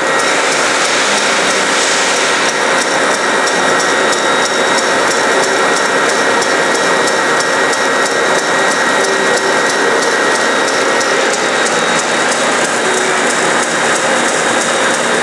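Bandsaw with a carbide grit-edge blade grinding steadily through a block of graphite as the powered table feeds it into the cut: an even grinding hiss with a faint high whine, slowed by a 2-horsepower motor working near its limit.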